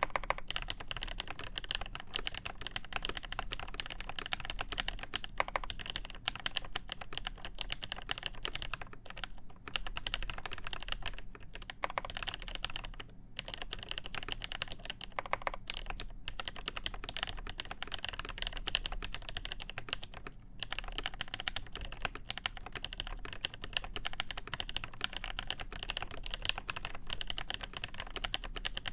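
Continuous fast typing on a Cherry G80-1813 (Dolch PAC) mechanical keyboard with Krytox-lubed Nolives switches, mounted on the PCB with no plate, and original Cherry Dolch keycaps. The keystrokes come in a dense stream, broken by short pauses a few times.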